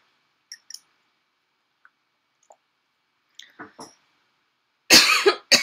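A person's faint mouth clicks and soft mouth noises during a pause in speech. Near the end comes a loud, breathy vocal burst of about half a second, then a shorter one.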